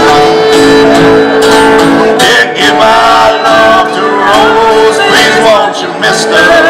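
Live acoustic music: a man singing to acoustic guitar, amplified through PA speakers.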